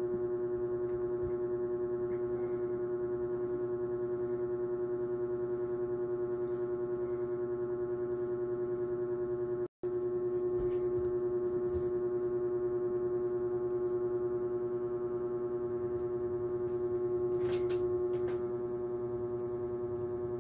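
A steady drone: one strong pitch with a stack of overtones above it, unchanging, cutting out for a split second about ten seconds in.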